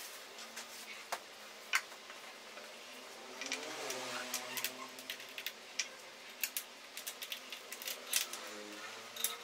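Scattered clicks and light knocks of metal hardware and a hand tool as bolts are fitted into the mechanism under an office chair seat. A soft wavering hum is heard around the middle and again near the end.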